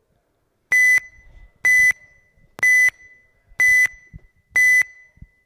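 Race timing system sounding its start countdown for an RC car race: five short, identical high-pitched electronic beeps about one second apart.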